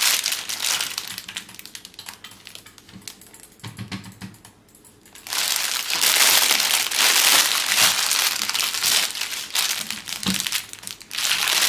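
Clear plastic bag of embroidery floss skeins crinkling as hands crumple and handle it. The crackling is loud at first, softer for a few seconds, then loud again from about five seconds in.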